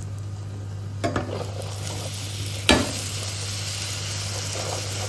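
Puri sizzling as it fries in hot oil in a pan, a steady hiss. A metal slotted spoon turning it gives a small clatter about a second in and a sharp knock against the pan about two and a half seconds in.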